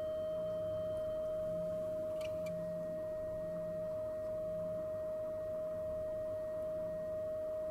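Steady 625 Hz sine tone from a loudspeaker driven by a function generator, sounding into a closed-end perspex resonance tube at a frequency chosen to set up a standing wave. A single pure note at an even level.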